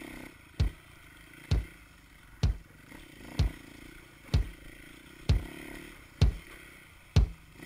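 A deep drum beat from the soundtrack: single bass-drum thumps about once a second, eight in all, each with a falling low boom, over a faint background.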